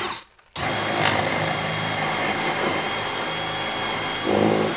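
DeWalt 20V cordless drill boring up through a wooden cabinet bottom, its motor running steadily with a high whine. It stops abruptly just after the start, then starts again and runs on evenly.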